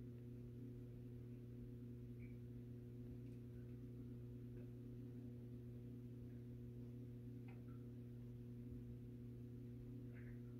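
Faint steady electrical hum at a fixed low pitch, with a few soft, barely audible ticks.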